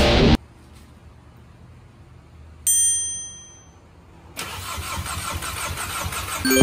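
A bright chime rings once about three seconds in and fades. Then, a little after four seconds in, a four-cylinder petrol car engine starts and runs with a fast even pulse, getting louder toward the end.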